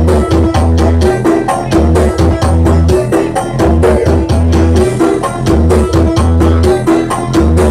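Loud music blasting from a large truck-mounted 'horeg' carnival sound system, with heavy booming bass notes and a fast, busy percussion beat.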